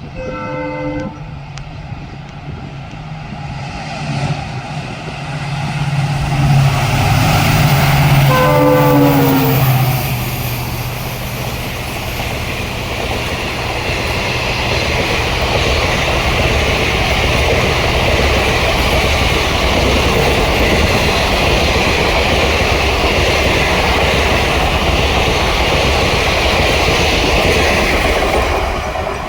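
Indian Railways intercity express running through a halt at speed without stopping. The locomotive horn sounds briefly at the start and again about eight seconds in, its pitch dropping as the locomotive passes with a deep, loud rumble. The coaches then roll steadily past until the sound fades near the end.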